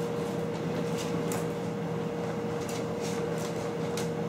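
A steady mechanical hum fills the room, with faint scattered clicks and taps from puppies playing on a plastic sit-and-spin toy.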